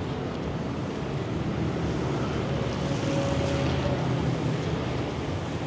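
Rainy city street: vehicle engines running in steady traffic over a constant hiss of rain and wet road.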